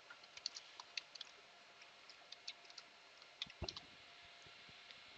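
Computer keyboard being typed on, faint irregular keystroke clicks with a quick cluster about three and a half seconds in.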